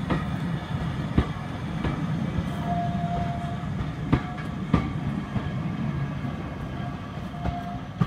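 Vintage wooden passenger carriages rolling slowly past on the track: a steady low rumble with irregular sharp clacks as the wheels cross the rail joints, and a brief faint squeal about three seconds in.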